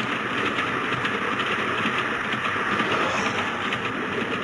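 A moving train running on the rails: a steady rumble and rattle with faint wheel clicks.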